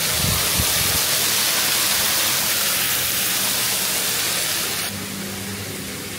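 Steady rush of falling water, an even hiss that cuts off abruptly about five seconds in.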